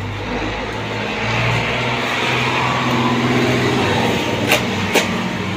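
A motor vehicle passing by, its engine hum and road noise swelling to a peak a couple of seconds in and then fading. Two sharp clicks near the end.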